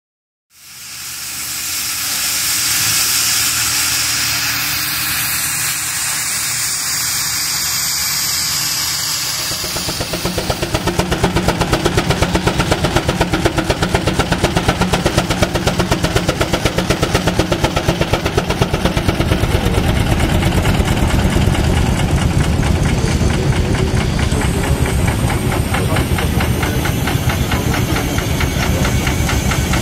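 A.D. Baker 23-90 steam traction engine: a steady hiss of escaping steam, then, about ten seconds in, the engine runs with a fast, even exhaust chuff.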